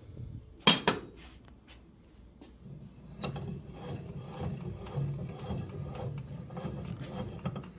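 Yost ADI-8 ductile iron bench vise being worked by hand: a sharp metal clank about a second in, then the screw and sliding jaw rubbing and ticking steadily as the handle is turned.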